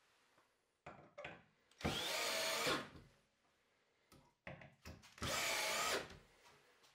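Cordless drill run in two bursts of about a second each as it drives into a wooden shelf held against the wall. A few short knocks come before each burst.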